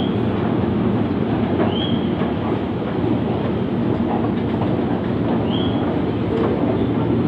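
Commuter train running, heard from inside the carriage: a steady low rumble of the moving train, with three short high squeals that rise in pitch, near the start, about two seconds in and about five and a half seconds in.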